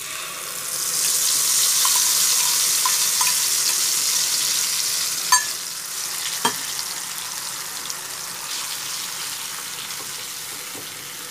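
Mustard and poppy-seed spice paste sizzling as it hits hot mustard oil in a kadai. The sizzle swells about a second in and then slowly eases, with two sharp clicks near the middle and stirring toward the end.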